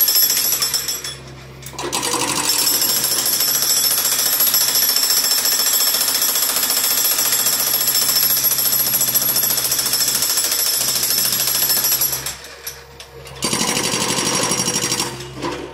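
Hydraulic breaker on a John Deere 50D compact excavator hammering concrete with rapid, continuous blows. It pauses briefly about a second in and again around twelve seconds in.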